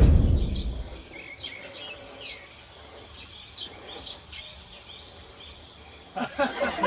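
Birds chirping with short calls, after a loud noise that fades out over the first second. Near the end a burst of chattering voices begins.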